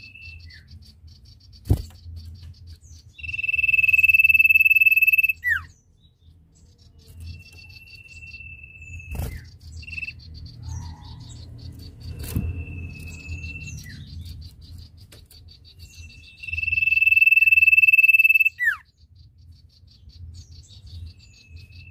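Common iora singing: long, steady, high whistled notes, the two loudest each held about two seconds and ending in a quick downward note, with shorter, quieter whistles between them. A fast, high ticking chatter runs underneath, and a few sharp knocks come about two, nine and twelve seconds in.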